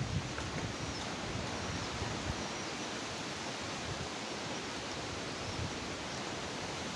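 Strong wind rushing through trees, a steady hiss of tossing leaves, with wind buffeting the microphone in a low, uneven rumble that is strongest at the start.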